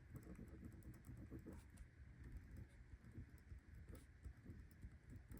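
Near silence: room tone with a few faint, light clicks and taps.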